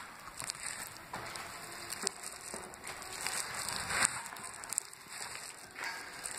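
Irregular crunching and scuffing of footsteps on a gritty, debris-strewn floor, with faint crackles.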